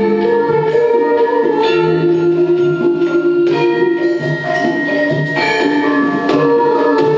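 Javanese gamelan ensemble playing, with struck metal mallet instruments whose notes ring on.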